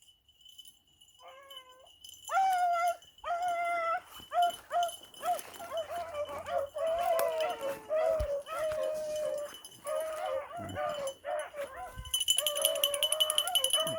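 A pack of beagles baying on a rabbit's trail: many repeated, overlapping long howls, the sign that the hounds are running the rabbit. A high metallic jingling joins in near the end.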